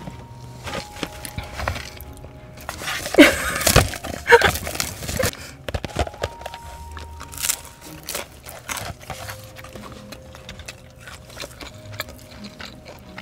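Food packaging rustling and crackling for about two seconds, then close-up eating of fried chicken skewers, with small crunches and mouth clicks as they are chewed.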